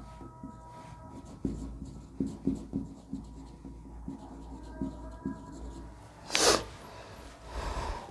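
Hand-writing and drawing a diagram: short scratchy strokes come one after another, with two longer, louder swishes near the end.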